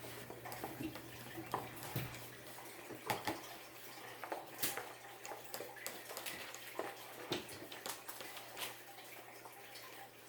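Spoons stirring a thick mix of white glue and shaving cream in bowls: irregular wet squelches and small clicks and scrapes against the bowls.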